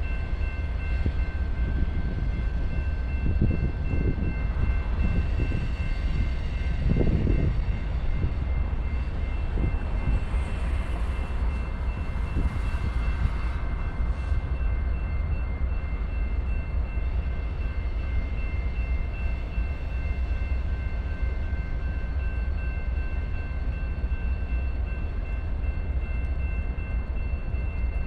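BNSF freight train rolling past, a steady low rumble with a few knocks and clanks in the first third and a faint steady high whine.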